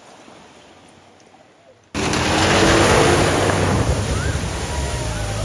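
A vehicle ploughing through deep floodwater: about two seconds in, a loud rush of spraying water starts abruptly, with an engine hum beneath it, and then slowly eases.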